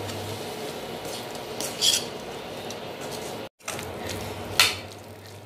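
Steel spatula stirring and scraping thick onion-tomato masala in a steel kadai, with two louder scrapes against the pan, about two seconds in and again near the end, over a low steady hum.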